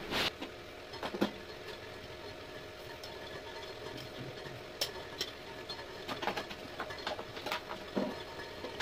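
Quiet stovetop sounds: a steady low hum under scattered light clicks and clinks of a utensil against a pan as tea leaves go into a pan of milk.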